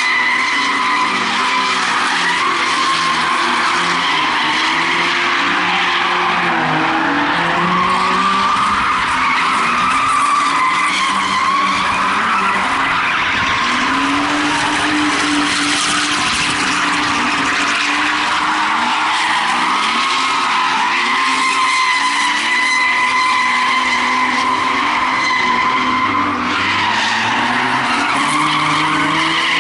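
Drift cars sliding on track: tyres squealing continuously as the engines rev up and down over and over.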